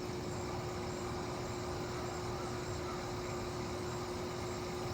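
Steady mechanical hum with one constant tone, unchanging throughout.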